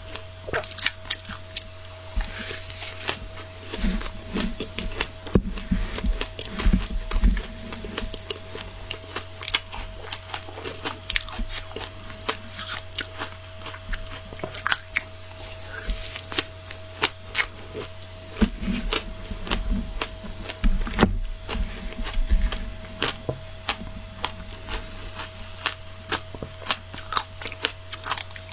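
Close-up crunching and chewing of shaved ice coated in matcha powder: many sharp, irregular crunches, with heavier bites in two stretches, over a steady faint hum.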